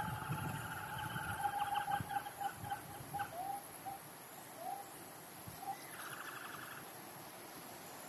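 Nestlings in a tree-hole nest calling: a long held note with a fast rattling trill above it, then a few short rising notes and a brief rattle about six seconds in.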